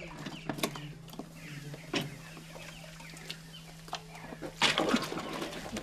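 Chickens clucking in short, scattered calls, with a louder burst about four and a half seconds in.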